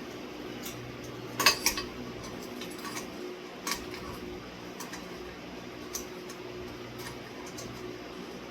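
Glass clinking against metal as the glass shades and bulbs of a ceiling fan light kit are handled and fitted: a few sharp clinks, the loudest pair about one and a half seconds in, over a steady low hum.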